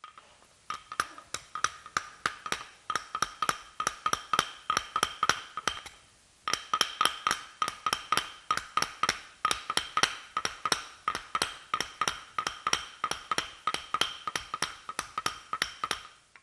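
Wooden mallet tapping rapidly on a small tin-lead organ pipe held on a mandrel, about three or four strikes a second, each with a short ringing note. The tapping pauses briefly about six seconds in, then resumes. The pounding rounds pipes that are not quite round.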